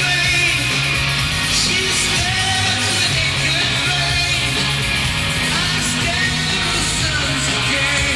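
A rock band playing live with a singer, heard from inside the concert crowd.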